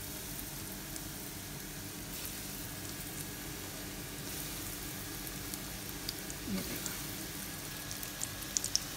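Breadcrumb-coated chicken nuggets frying in hot oil in a shallow pan: a steady sizzle, with a few sharp crackles near the end.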